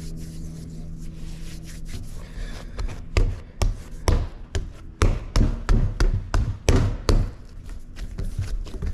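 Dough being kneaded by hand, thumping against the work surface in quick, uneven strokes, about two to three a second, from about three seconds in. Before that, a steady low hum.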